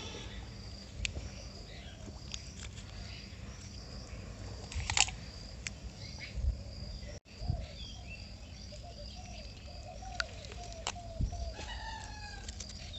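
Outdoor rural ambience with birds calling repeatedly and a steady high background, broken by a few short splashes and knocks as a hand gathers snails from shallow water.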